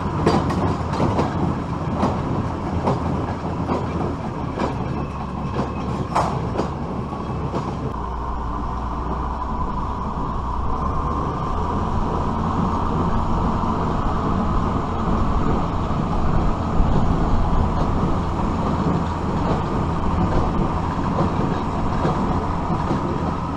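Case IH Maxxum 5140 diesel tractor running under load, pulling a New Holland 570 small square baler through hay: a steady mechanical clatter, with many sharp clicks and knocks over the first several seconds, then a steadier rumble. Wind buffets the microphone.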